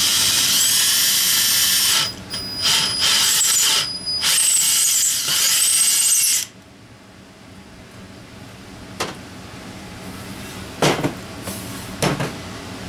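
Hand-held power drill whining as it bores into an aluminium Offenhauser intake manifold, in three runs of about two seconds each with brief stops between, its pitch rising and falling as the bit loads up. The drilling stops about six and a half seconds in, followed by a few sharp knocks.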